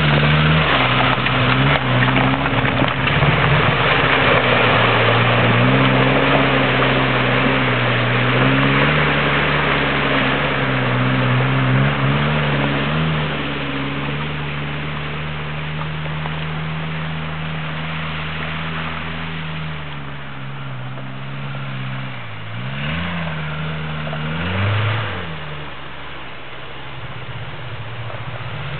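Suzuki SJ413's 1.3-litre four-cylinder petrol engine running as the 4x4 drives off-road, its note shifting with the throttle. It grows quieter about halfway through as the vehicle moves off. Near the end the revs dip and climb again twice.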